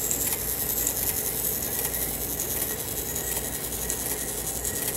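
Hubert Herr cuckoo clock movement running, with a steady stream of faint small metallic clicks as its chain feeds over the wheel and rubs against a movement post. The repairer calls this a design flaw that costs the movement power.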